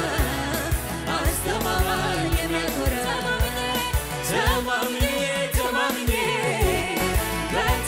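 Live Ethiopian gospel worship song: a woman sings the lead into a microphone with a choir singing along, over a band with a steady drum beat of about two strikes a second.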